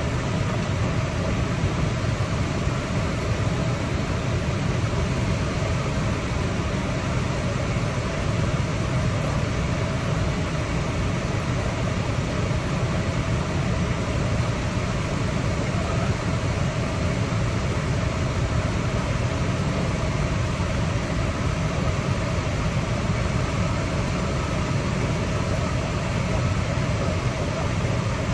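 Steady cabin noise inside a car: the engine running and the air-conditioning fan blowing, an even low hum with hiss that does not change.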